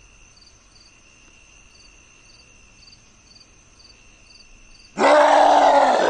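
Faint steady high tones with a soft chirp repeating about every half second, then, about five seconds in, a loud drawn-out roar lasting about a second and a half.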